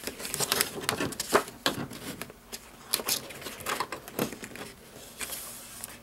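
Manila-folder cardstock rustling and scraping as hands slide one piece into another and press it flat, irregular short strokes of paper sliding on paper.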